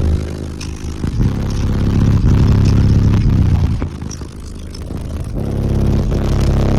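Twelve 15-inch subwoofers playing deep bass at very high level in an SUV, with the vehicle's body buzzing and rattling from it. The bass swells, drops back about four seconds in, and builds again near the end.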